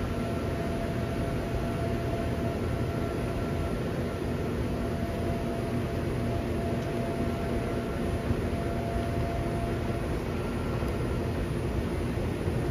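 Electric inflatable blower running steadily, a constant rush of air with a steady hum, filling a bounce house as it inflates.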